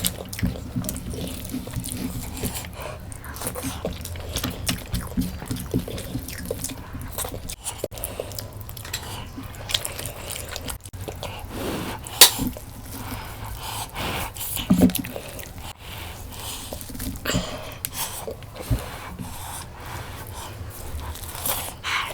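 Close-up eating of mutton curry and rice: wet chewing and lip smacking with many short irregular clicks, two of them louder past the middle.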